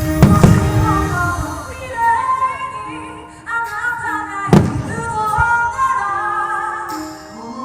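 A pop song with a woman singing, over which firework shells boom twice: once at the start and again about four and a half seconds in.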